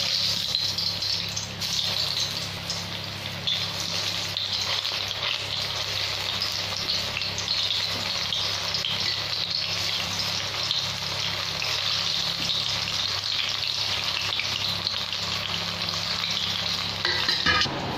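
Spring-onion and gram-flour kofte deep-frying in hot oil: a steady sizzle of bubbling oil.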